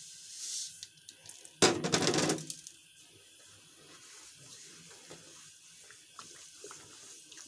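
Granulated sugar poured into a pot of cooking gajrela (grated carrot, rice and milk): a soft hiss, then a louder rushing pour lasting about a second, roughly two seconds in. Near the end, faint light ticks of a spoon working the sugar in.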